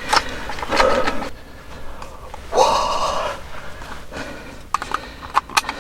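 A person breathing hard close to the microphone, two strong breaths or whispers, followed by a few short sharp clicks near the end.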